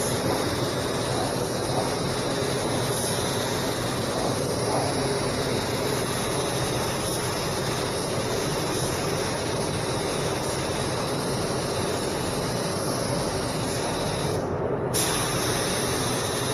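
SprayIT R500 LVLP gravity-feed spray gun hissing steadily with compressed air while spraying clear coat, over a steady low drone. The high hiss cuts out for about half a second near the end, as when the trigger is briefly released.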